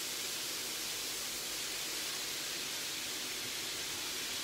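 Lardons, chopped onion and sliced mushrooms frying in hot olive oil in a flat pan, a steady sizzling hiss.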